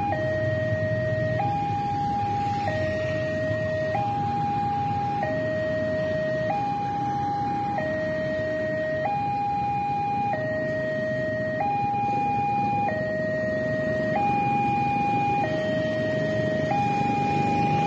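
Railway level-crossing warning alarm from the crossing signal's loudspeaker: an electronic two-tone alarm that alternates steadily between a lower and a higher tone, switching about every one and a quarter seconds, warning that a train is approaching and the barrier is down. A low rumble of waiting motorbikes and traffic runs underneath.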